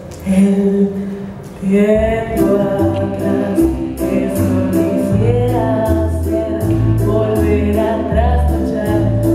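A song from a stage musical: a voice singing over a recorded band accompaniment. A steady beat and bass line come in about two seconds in.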